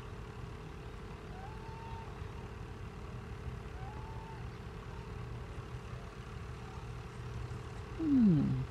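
Steady low engine hum, like an idling vehicle. Near the end comes a short, loud sound falling in pitch.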